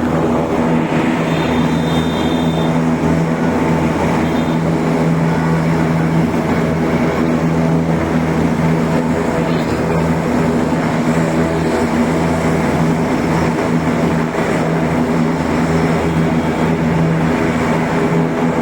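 Helicopter running steadily with a constant, unchanging drone.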